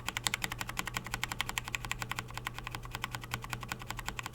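A single key on a Logitech G512 Carbon keyboard with Romer-G Linear switches, pressed over and over in quick succession, about ten even clicks a second. The linear switch has no tactile bump.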